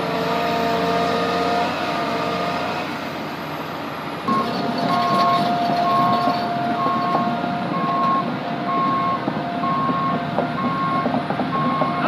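John Deere 350D LC excavator's diesel engine running, with steady whining tones. About four seconds in it gets louder and the machine's travel alarm starts beeping, about one and a half beeps a second.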